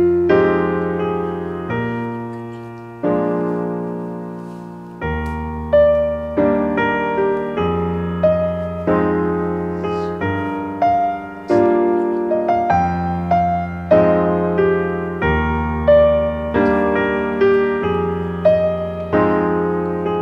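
Background music: solo piano, a melody of struck notes that ring and fade over low bass notes held a second or two each.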